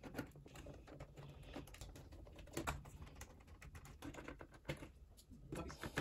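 Faint, scattered clicks and light taps from handling the plastic bottom case of a laptop, as the bottom-cover screws are being worked on.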